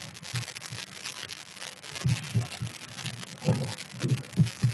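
Irregular low thuds of footsteps with rustling and small clicks as a person moves about close to a webcam microphone.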